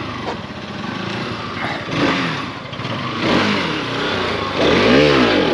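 Motorcycle engine revving hard for a wheelie. Its pitch climbs and drops about two seconds in, then again, louder, near the end.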